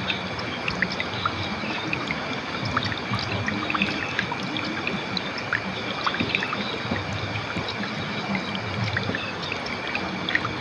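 River water flowing over rocks: a steady rush with many small splashes and trickles.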